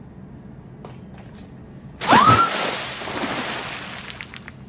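Water flung from a glass into a face, a sudden splash about two seconds in that dies away over the next two seconds, with a short yelp as it hits.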